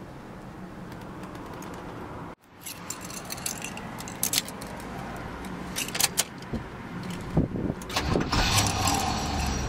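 Car keys jangling and clicking on their ring at the ignition of a 1973 Cadillac Fleetwood Brougham. A steady low hum cuts off about two seconds in, and the rattles come thicker and louder near the end.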